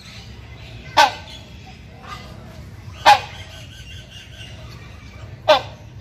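Buceros hornbill giving loud, short honking calls, three in a row about two seconds apart, each dropping in pitch: a male's mating call to a female.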